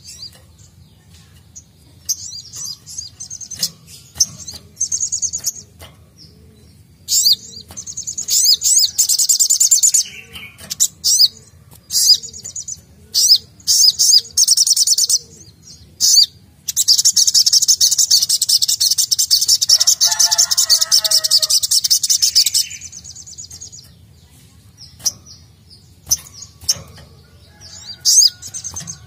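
Male olive-backed sunbird singing: sharp, very high chirps and short trills in bursts, then one long rapid trill of about six seconds in the middle, followed by scattered chirps.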